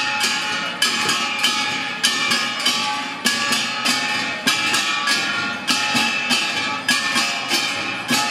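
Ringing metal ritual percussion struck in a steady repeating beat, with an accented stroke about once a second, each strike ringing on between strokes.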